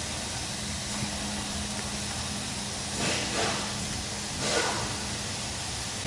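Steady background hiss with a faint low hum, and two soft, brief rustling sounds about three and four and a half seconds in.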